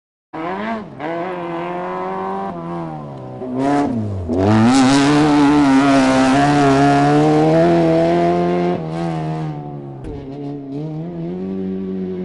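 A MotoGP racing motorcycle engine at high revs: the pitch drops sharply about four seconds in, then climbs back and holds loud and high for several seconds, with brief breaks in the note at gear changes, before easing back near the end.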